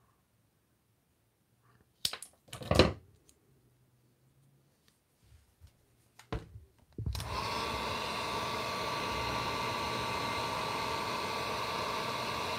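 A few sharp knocks from handling tools, then about seven seconds in a heat gun switches on and runs steadily, a even blowing rush with a steady whine in it, as it shrinks heat-shrink tubing onto a figure's neck peg.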